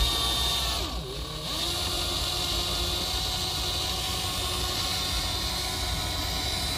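Cordless drill running steadily, driving a wire-winder that draws a cutting wire through the windshield's urethane bond. Its pitch dips briefly about a second in, then holds.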